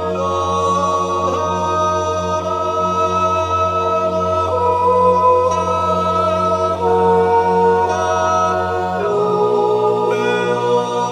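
Swiss yodel choir singing a cappella: long held chords of several voices over a steady low bass note, with the bass moving to a new note about nine seconds in.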